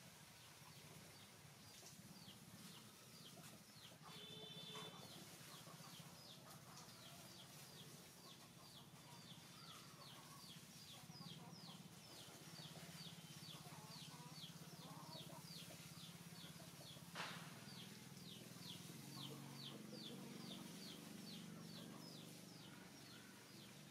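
Faint outdoor ambience: short high chirps repeating about three times a second over a low steady hum, with one sharp click about seventeen seconds in.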